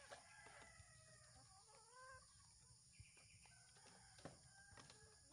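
Faint sounds of a flock of free-range chickens: one drawn-out call rising and falling over the first two seconds, then shorter calls and clucks with a few sharp clicks.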